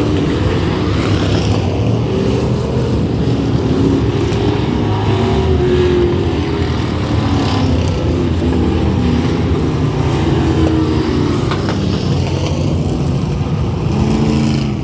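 Several race car engines running together on a track, their pitches rising and falling against each other as the cars lap.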